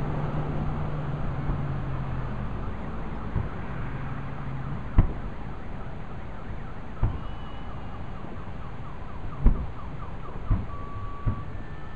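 Fireworks shells bursting: about five separate booms spread through, the loudest about five seconds in and again near nine and a half seconds. Under them is steady background noise, with a low hum over the first few seconds. In the second half a pattern of short high electronic tones repeats several times a second, then gives way to held tones.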